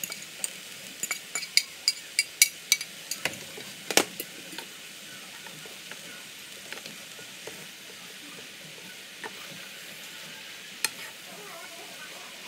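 Pad see ew of wide rice noodles, chicken and greens sizzling in an electric skillet as it is stir-fried. Utensils click and knock sharply and often in the first four seconds or so, then only now and then.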